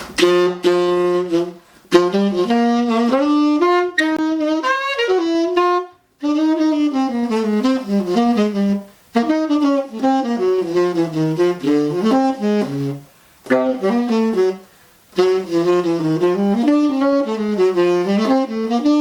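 1938 Buescher Aristocrat tenor saxophone with a hard rubber Brilhart mouthpiece, played in jazz phrases of quick running notes with a few short breaths between them. It is played on a used, unmarked Vandoren reed that the player judges a dead reed.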